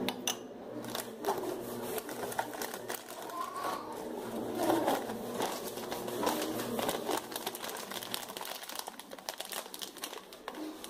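Crinkling and rustling of plastic and foil powder packets being handled, with many small clicks and taps.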